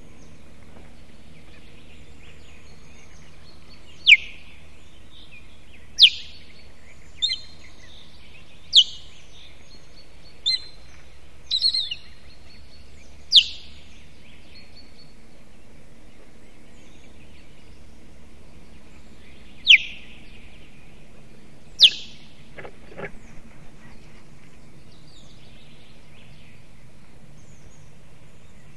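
Osprey giving sharp warning calls, each a quick high note sweeping downward, about eight of them at uneven intervals over some twenty seconds. A brief low rustle follows the last call.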